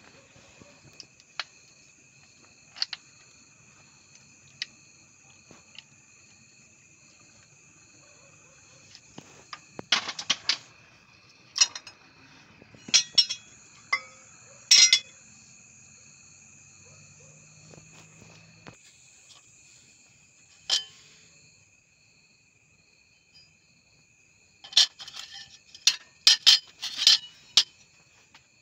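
Sharp metallic clinks and clanks of tractor disc-brake parts and tools being handled, in clusters about ten seconds in and again near the end. Steady chirping of crickets runs underneath.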